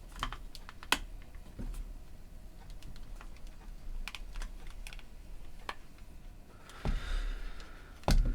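Irregular small clicks and taps of headphone parts and tools being handled during reassembly, with a short rustle and a louder knock near the end.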